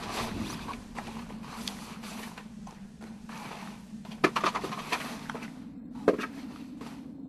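Scuffs, knocks and jacket rustle of a person clambering into a narrow rock crevice, with a sharper knock about four seconds in and another about six seconds in, over a low steady hum.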